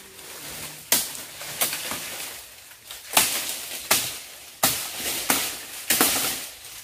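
A blade chopping nipa palm fronds: about eight sharp, separate strokes at uneven gaps.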